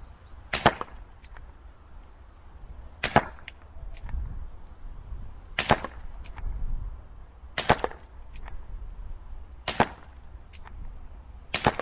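Air pistol firing .177 darts, six sharp shots about two seconds apart, each followed by a fainter click.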